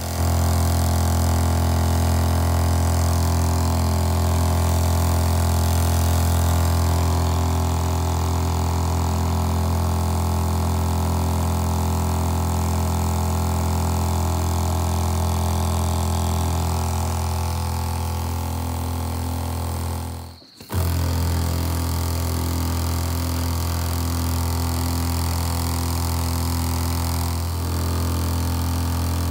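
ATV sprayer pump running with a steady drone while the spray wand hisses out a fine mist of algaecide. It starts suddenly at the outset and cuts out for a moment about two-thirds of the way through before carrying on.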